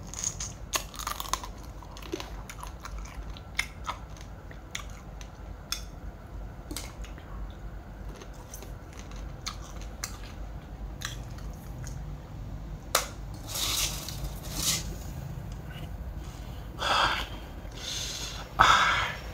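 A person eating crab salad: chewing and biting with scattered crunches and clicks. A few louder crunchy bouts come in the second half.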